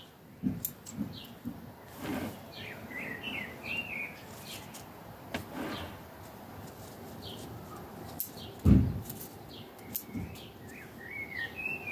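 Bonsai scissors snipping privet twigs: scattered sharp clicks at irregular intervals. Birds chirp in the background, twice in short bursts, and one dull, loud thump comes about three-quarters of the way through.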